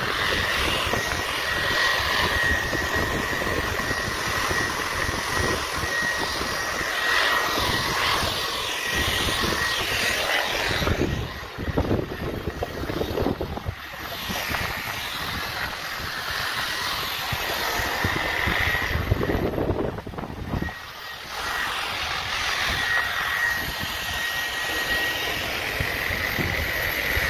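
Slow-speed electric grinder fitted with a polishing pad, buffing a metal pipe with metal polish: a steady motor whine over the hiss of the pad on the metal, easing off briefly about 11 and 20 seconds in.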